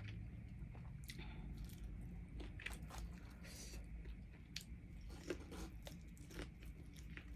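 A person biting and chewing crunchy food close to the microphone: irregular crunches and small mouth clicks over a quiet room background.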